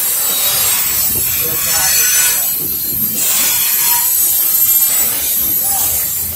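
Freight train of empty coal cars rolling past: the steady noise of steel wheels running on the rails.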